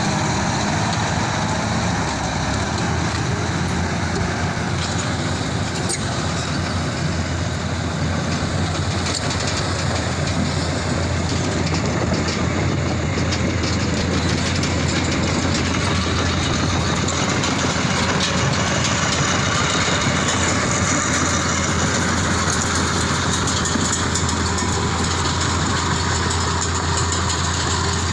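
Heavy diesel engine running steadily with an even, unbroken drone.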